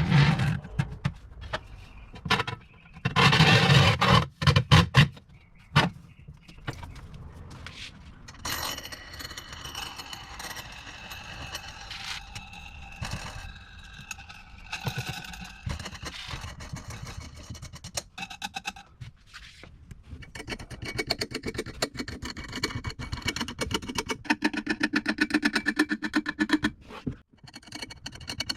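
Scraping and knocking of parts being handled and fitted, with a louder scrape about three seconds in lasting a couple of seconds, then scattered clicks and light knocks.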